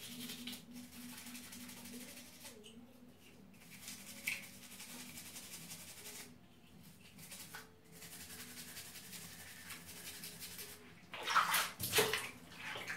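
Water sloshing and splashing as loose Lego bricks are washed by hand in a basin of water, with a louder burst of splashing near the end.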